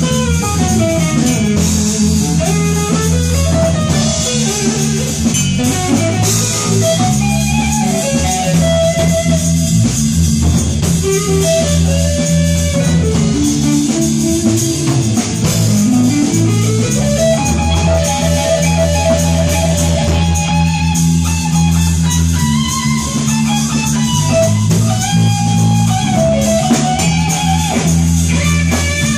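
Live rock band playing loud and steady: electric guitars over bass guitar and a drum kit, with a melodic lead guitar line of held notes and slides.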